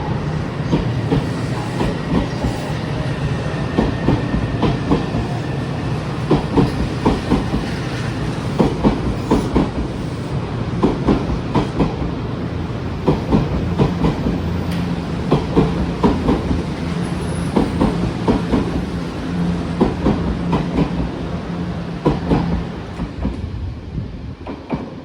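Odakyu 8000 series train running past, its wheels clicking in clusters over the rail joints under a steady running hum. It fades away over the last couple of seconds.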